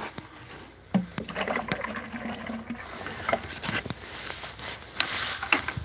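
Sugar syrup sloshing in a plastic bucket as it is carried, with several knocks and clatters of the bucket. A steady low hum runs for about two seconds starting about a second in.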